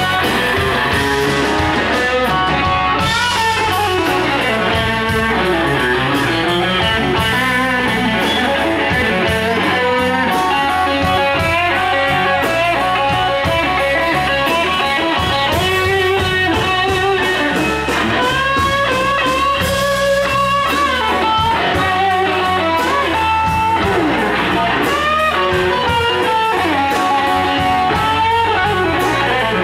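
Live blues band playing a slow blues: an electric guitar takes a lead solo full of bent notes over electric bass and drums, with no singing.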